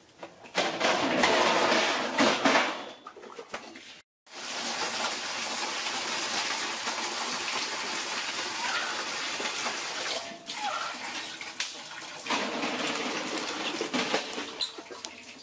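Water pouring into a steel basin: a steady rushing splash that cuts out briefly about four seconds in, with a few faint high chirps around ten seconds in.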